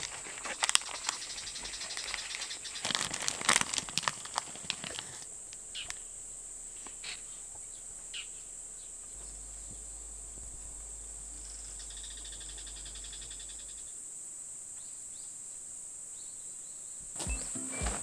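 Crinkling and clicking of a small paperboard box and its wrapped contents being handled and opened for the first five seconds or so. After that, a steady high insect trill, like crickets, goes on over a quiet background.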